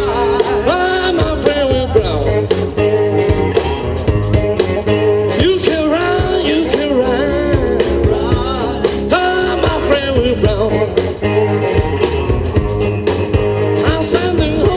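Rock and roll band playing live, with a voice singing over guitar.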